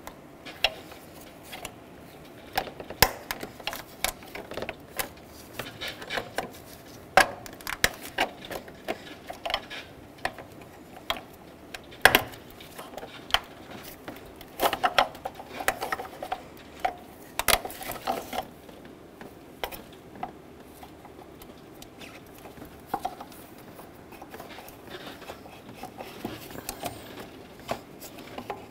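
Hand tools clicking, tapping and clinking against a hose clamp and metal engine parts as a coolant hose clamp is worked loose and the hose twisted off the thermostat housing. The clicks come irregularly, the sharpest about twelve seconds in.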